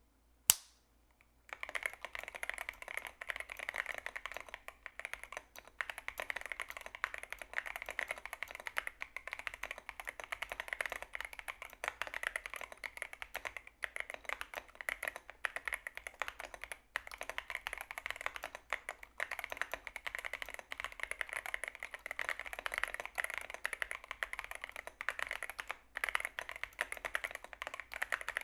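Continuous fast typing on an Epomaker RT100 mechanical keyboard: a dense, steady patter of key clacks that begins about a second and a half in, just after a single sharp click.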